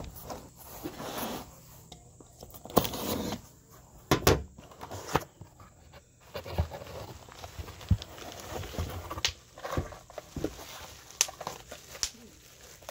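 Cardboard box being handled and opened: irregular taps, knocks and scrapes on the cardboard, with rustling of packing material.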